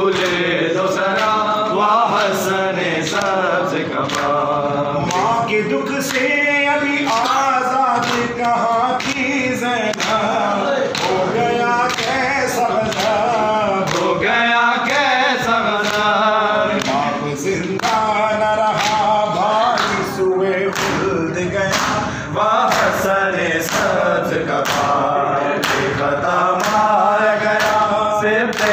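A noha, the Shia mourning lament: a lead male reciter chanting with a group of men singing along in unison. Regular sharp slaps, matam (hands beating on chests), keep the beat under the voices.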